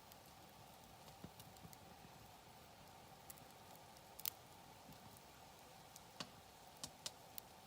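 Wood fire crackling faintly, with scattered sharp pops and snaps from the burning wood; the loudest comes as a quick double snap about four seconds in, with a cluster of smaller pops near the end.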